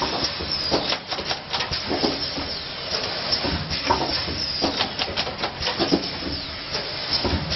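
Doypack spout-pouch water filling and capping machine running: a steady hiss with frequent irregular clicks and knocks from its mechanism.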